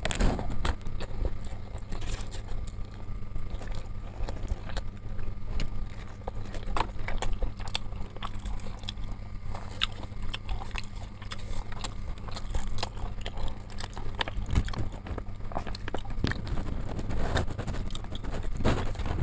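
Close-up eating sounds of chicken satay and rice: chewing and mouth noises, with many small irregular clicks and rustles from the paper wrapper and skewers, over a steady low hum.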